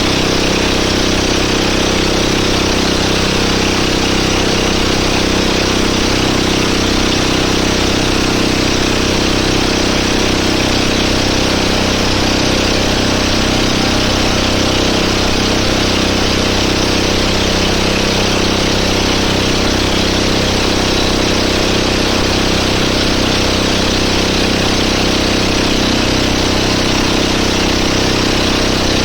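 Boat engine running at a steady speed, with a constant rush of wind and water over it.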